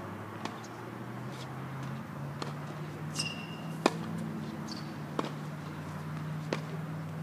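Tennis balls struck by rackets and bouncing on a hard court during a rally: about six sharp knocks, the loudest a little before four seconds in, with a brief squeak around three seconds in. A steady low hum runs underneath.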